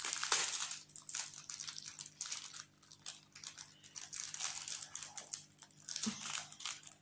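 Plastic wrapping on a rolled diamond-painting kit crinkling and rustling in irregular bursts as it is handled in the hands.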